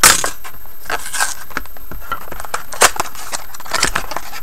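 Plastic wrapper of an SP Game Used hockey card pack crinkling and tearing as it is opened by hand: irregular crackles, with a loud snap at the start and a few sharper ones later.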